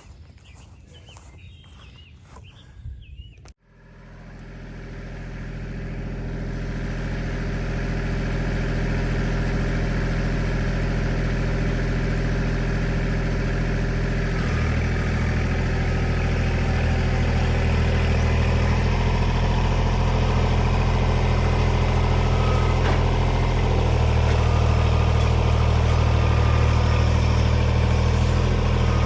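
Tractor engine running steadily. It fades in after a break about three and a half seconds in, and its low note grows stronger about halfway through and again near the end as it is throttled up or put under load.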